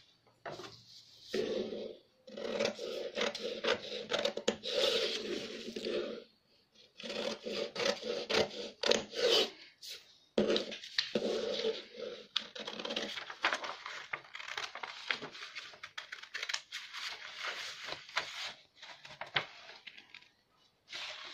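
Scissors cutting through stiff paper pattern sheet in several long runs of snipping, with short pauses between them and the paper rustling as it is turned.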